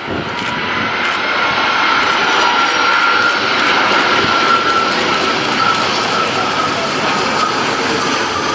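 Jet airliner's engines passing close by: a loud, steady noise that swells over the first couple of seconds, with a high whine that drifts slightly down in pitch.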